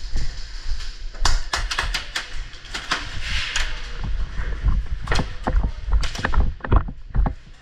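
Airsoft pistol firing over a dozen sharp shots in an irregular string.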